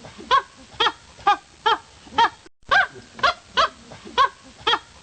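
An animal calling over and over in short pitched calls, about two a second, with a brief silent gap about halfway through.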